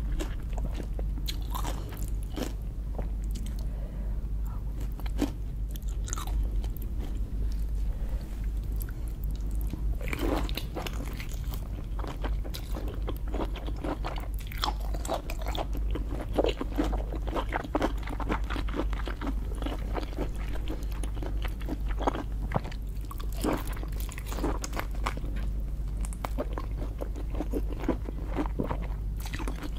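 Close-miked eating of lobster: irregular crunching, biting and wet chewing clicks, with a steady low hum underneath.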